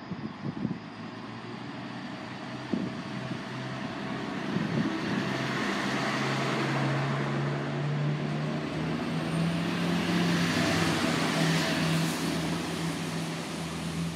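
DB Class 642 Desiro diesel multiple unit running past, its diesel engines giving a steady hum that steps up in pitch about halfway through. Wheel and rail rushing swells as the train goes by.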